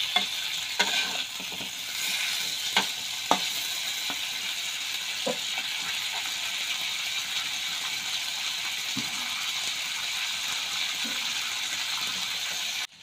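Cooked curry chicken pieces sizzling steadily in hot oil in a kadai on a low flame, with a few clicks and scrapes of a spatula against the pan in the first few seconds. The sizzle stops abruptly near the end.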